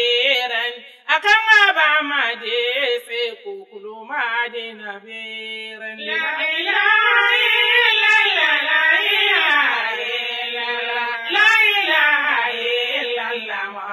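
A solo voice singing a devotional chant, with long held notes that waver up and down, breaking briefly about a second in and again near four seconds. The sound is thin, with nothing in the top register.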